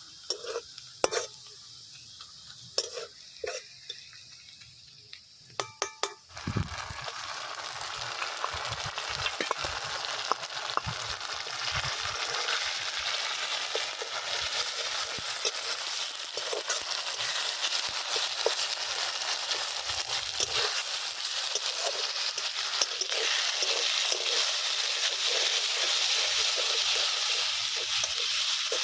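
A few light clinks, then about six seconds in a loud sizzle starts suddenly as food fries in hot oil in a cooking pan. It keeps sizzling and slowly grows louder while being stirred, with occasional taps of the spoon.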